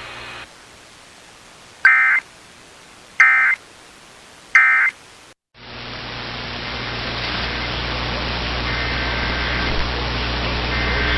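EAS end-of-message code from a NOAA Weather Radio broadcast: three short digital data bursts about 1.3 s apart, marking the end of the alert. After a moment of dead silence, a steady hiss with a low hum comes in and slowly grows louder.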